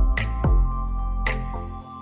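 Electronic background music with sustained chords, a deep kick drum and bright cymbal-like hits; the bass drops out near the end.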